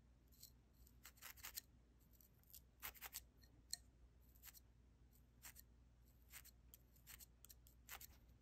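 Faint, irregular short pokes of a fine felting needle stabbing into wool, some single and some in quick clusters.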